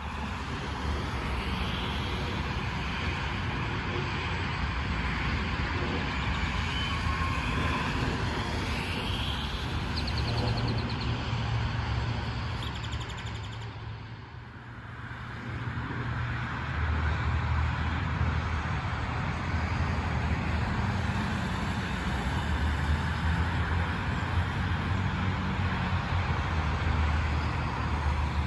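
Steady highway traffic: cars and trucks passing, a constant tyre rush with low engine rumble underneath, dipping briefly about halfway through.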